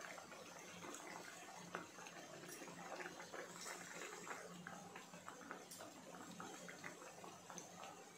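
Dhokla cutlets deep-frying in hot oil in a kadai: a steady sizzle broken by many small crackles and pops.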